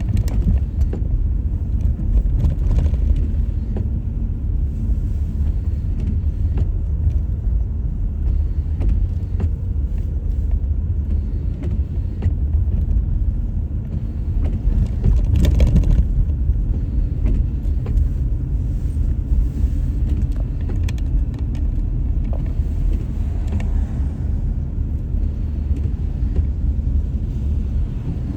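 Car driving on a snowy road, a steady low rumble of engine and tyre noise. About halfway through there is one louder thump.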